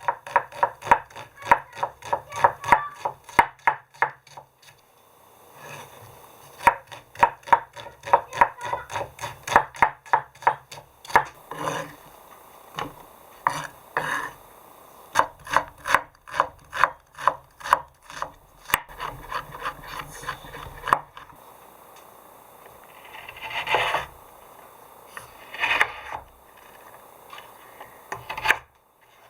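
Knife chopping on a wooden cutting board: quick runs of even strokes, about four a second, broken by short pauses.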